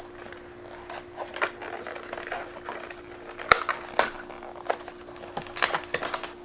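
Hands handling small packaged items: rustling plastic packaging and light clicks and taps, with two sharper clicks about three and a half and four seconds in.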